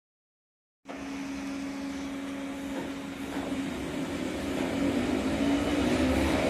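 RVR ER-31/35 electric multiple unit on the move, starting about a second in: a steady electrical hum, then a whine that rises in pitch and grows louder as the train gathers speed.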